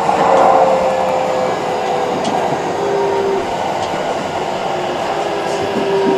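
Keikyu 1000 series electric train running, a steady rumble with the whine of its traction motors gliding slowly down in pitch as the train slows.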